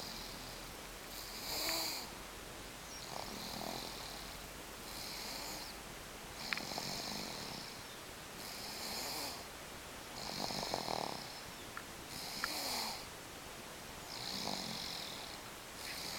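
Snoring in sleep, a rasping snore on each breath that swells and fades about every two seconds in an even rhythm.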